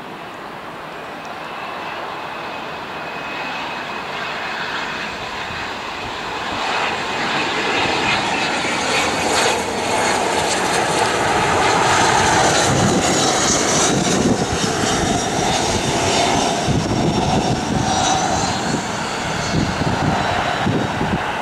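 Cessna Citation Latitude business jet on landing approach, its twin Pratt & Whitney Canada PW306D1 turbofans making a rushing jet noise with a high whine. The noise grows louder as the jet passes close by, about halfway through, and the whine drops slightly in pitch as it moves away.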